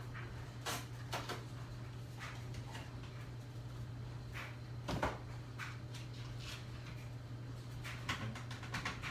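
Scattered knocks and clicks of things being handled and set down, the loudest about five seconds in, over a steady low hum.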